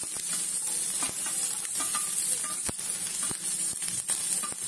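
Freshly added chopped onion sizzling in hot oil in a non-stick frying pan, with scattered clicks of a steel spoon as the onion is scraped off a plate and stirred in.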